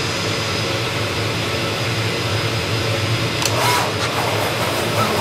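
Zünd digital flatbed cutter running as its tool head cuts a sheet: a steady hiss over a low hum, with a short cluster of clicks and a brief tone about three and a half seconds in.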